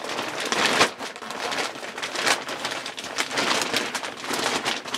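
Thin plastic sheeting of an emergency NBC poncho, a "bin bag suit", crinkling and rustling in irregular crackly bursts as it is unfolded and shaken out by hand.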